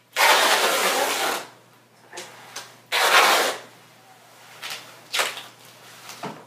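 Duct tape pulled off the roll: one long pull of about a second, a shorter pull about three seconds in, then a couple of brief tears and handling rustles.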